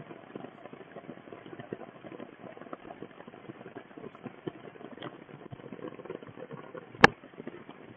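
Steady rain falling on leaves and wet ground, a dense patter of drops, with one sharp click about seven seconds in.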